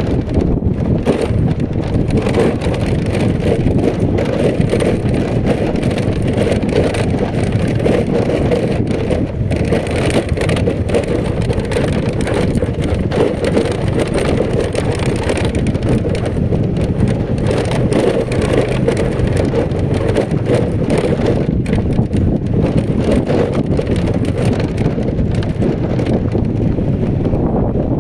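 A steady, loud rumble of wind buffeting the microphone while riding along a rough gravel track, with the running of the vehicle and its wheels on the stones underneath.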